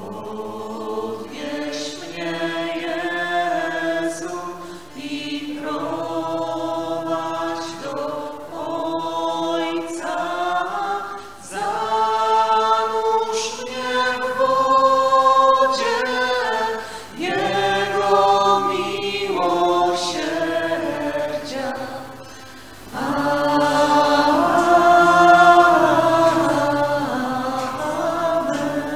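A choir singing a slow hymn in long held phrases, with short pauses between the phrases.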